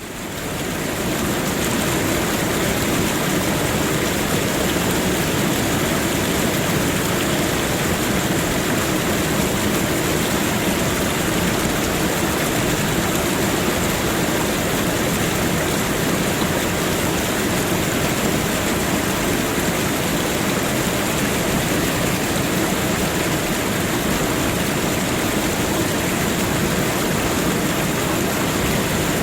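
Waterfall: a steady rush of falling water that fades in over the first second or two.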